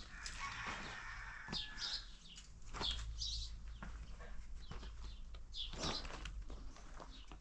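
Small birds chirping, short high calls repeated every half second or so, with a few scattered clicks and a low steady hum underneath.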